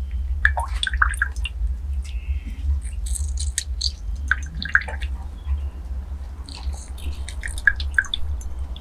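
Lemon juice dripping into glass cups of tea as a lemon is squeezed by hand, in small irregular drips and wet squelches from the fruit, over a steady low rumble.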